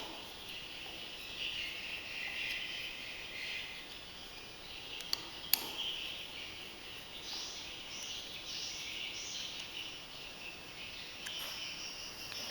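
Insects chirring steadily in the background, with two sharp clicks about five seconds in.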